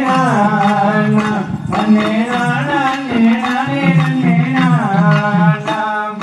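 Tamil valli kummi folk song: a sung melody over percussion, the music the dancers move to.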